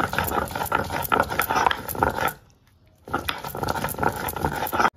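Stone roller worked back and forth on a stone grinding slab (shil-nora), grinding cumin with green and ripe chillies into paste: a gritty stone-on-stone rasp in two bouts, with a short pause about halfway through, cutting off suddenly near the end.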